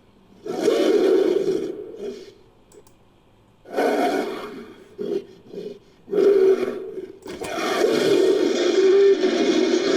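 Made-up monster roars for an ape-like cryptid, built from King Kong and other monster roar samples. One roar comes about half a second in and a second near four seconds, followed by short grunts. A long roar starts after about six seconds and is still going at the end.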